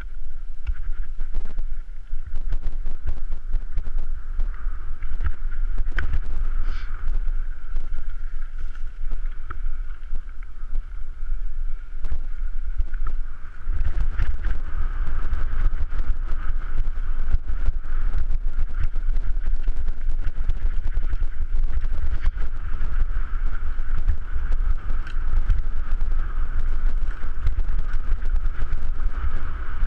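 Mountain bike descending a dirt singletrack, heard from a camera mounted on the bike: wind buffeting the microphone, with the rattle and clatter of the bike over rough ground and a steady high buzz. It grows louder and rougher about halfway through.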